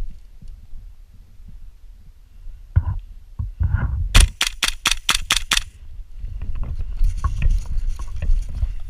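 Airsoft gun firing a quick string of about eight shots in a second and a half, with dull knocks and rustling of movement before and after.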